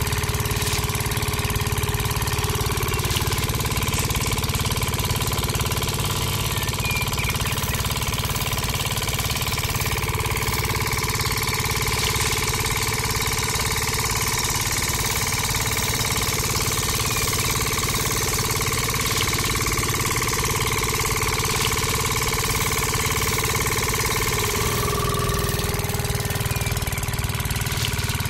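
A small engine running steadily, a low rumble with a steady whine over it, as the model diesel engine drives the miniature rice mill. The pitch shifts slightly near the end.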